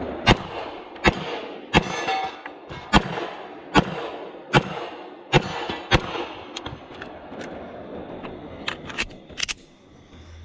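Rock Island Armory 1911 pistol firing about eight shots, evenly paced a little under a second apart, in a timed match string. Several fainter sharp cracks follow near the end.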